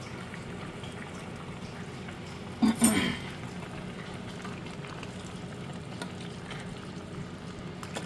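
Steady kitchen background hiss, with one short clatter of cookware nearly three seconds in.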